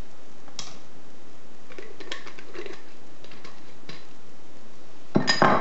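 Kitchen utensils and dishes clinking and clattering as they are handled on a counter, with a few scattered light clicks and then a quick cluster of louder knocks near the end.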